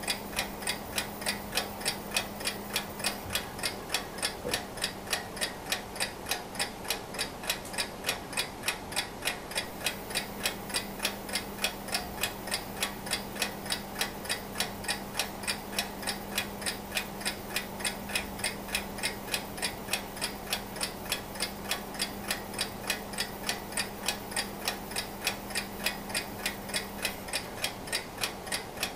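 Antique Junghans mechanical alarm clock, made in Germany in the 1920s–30s, ticking steadily and evenly.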